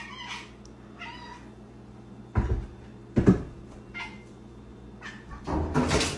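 Domestic cat meowing several times in short calls, with two heavy thuds about two and a half and three seconds in and a louder scuffling noise near the end.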